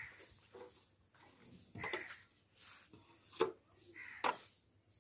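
Long-handled metal scraper scraping cow dung over dry dirt into a metal pan: a few short scrapes and knocks, the sharpest about three and a half and four and a quarter seconds in.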